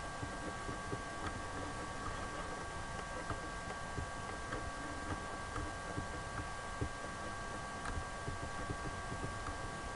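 Faint steady recording hiss with a thin electrical whine at two steady pitches, and soft ticks about twice a second.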